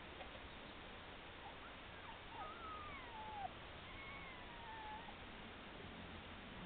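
Papillon puppy whining: a few thin, high whimpers, with the longest sliding down in pitch about two and a half seconds in and another held and falling slightly near the middle, over a steady background hiss.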